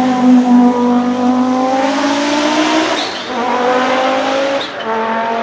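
Audi 90 IMSA GTO race car's turbocharged five-cylinder engine running hard at high revs. The note sags slightly, breaks off briefly about three seconds in, climbs again, and drops away once more near the end.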